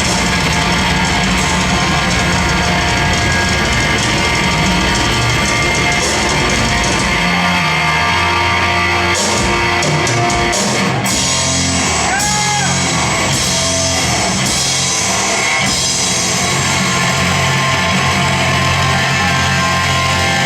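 Live rock band playing loud and dense, with guitar and drum kit.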